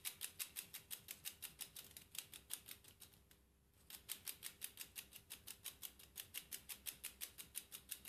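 Small 3D-printed plastic clockwork heart with a Ulysse escapement ticking rapidly, about five ticks a second. The ticking fades and stops about three seconds in, then starts again about a second later. This grey copy is pinned with 1.75 mm filament in place of metal dowels and, in the maker's words, works only partially.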